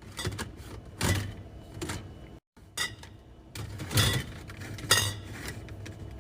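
Drink containers being set down and stacked on refrigerator shelves: a string of knocks and clinks, the loudest about a second, four and five seconds in.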